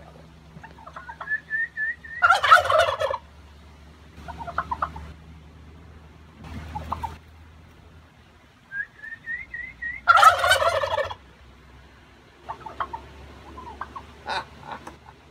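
Domestic turkeys gobbling: two loud gobbles about eight seconds apart, each led in by a quick run of short high notes, with softer calls in between.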